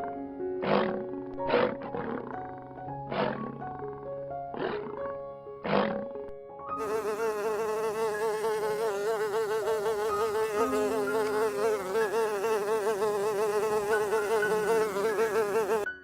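A flying insect's wings buzzing loudly and continuously at a steady pitch that wavers slightly, starting about seven seconds in. Before it there is music with several short, sharp sounds.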